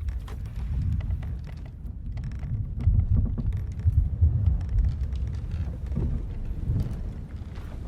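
Sailing-ship ambience: a deep rumble of wind and sea that swells in the middle, with scattered knocks and creaks of the ship's timbers.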